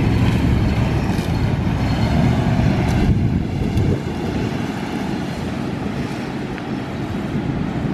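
A van's engine running as it drives over beach sand, with wind on the microphone. The engine is loudest for the first three or four seconds, then quieter as the van is heard from farther off.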